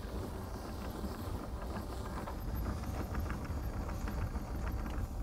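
Electric anchor windlass winching in the bow anchor chain, with a rapid, irregular clatter of links from about a second in, over a steady low rumble. The bow is being tensioned against a stern kedge until both lines are taut.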